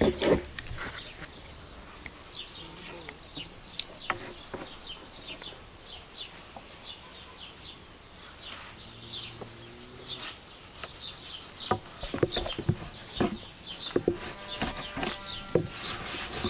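Small birds chirping in the background, many short high chirps, with occasional soft knocks of a long wooden rolling pin on a wooden board as pasta dough is rolled out.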